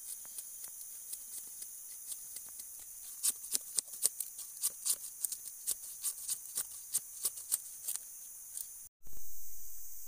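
Machete blade striking and splitting thin sticks into kindling: a quick run of sharp chopping clicks, about three a second, over steady insect chirring. Near the end the sound drops out for a moment, then a loud low rumble swells and fades.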